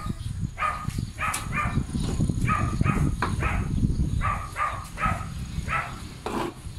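A dog yapping over and over, short barks about two a second, over a steady low rumble.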